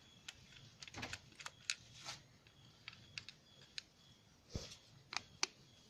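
Faint, irregular metal clicks and ticks from a screwdriver working the float-bowl screws of a Hero Splendor motorcycle carburettor, with small knocks as the carburettor body is handled.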